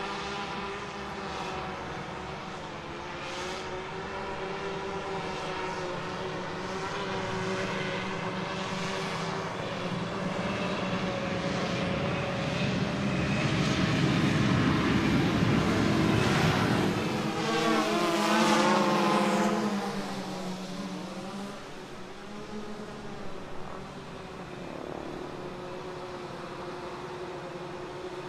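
A vehicle engine running. It grows louder through the middle, its pitch sweeps down and up about eighteen seconds in, and then it drops back to a quieter, steadier hum.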